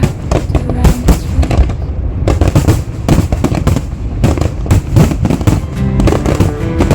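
Aerial fireworks in a dense barrage: many rapid, overlapping bangs and crackles with no let-up, with music playing beneath.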